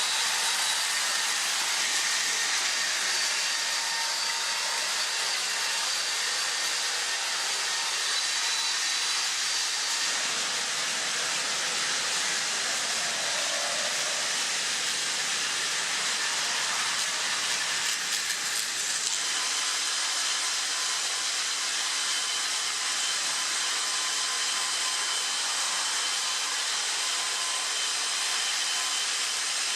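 Battery-powered Plarail toy trains running on plastic track: a steady whir of small electric motors and gears. The tone shifts about a third of the way through and again about two-thirds in.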